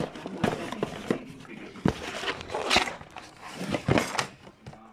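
Soldering station's box and packaging being handled and opened: rustling with irregular knocks and clicks, the sharpest about two, three and four seconds in.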